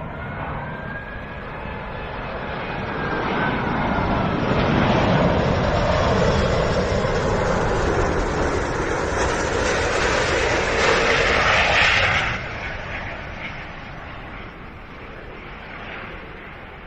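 Airbus A380's four jet engines passing close on landing approach: a jet roar that builds over the first few seconds with a whine sliding down in pitch. The roar stays loud until about twelve seconds in, then drops off sharply and fades away.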